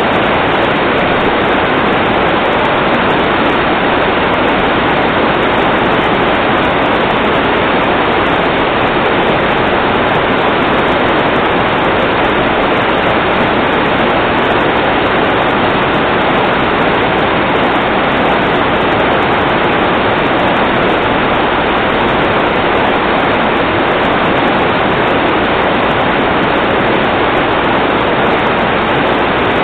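Loud, steady, unbroken rush of water.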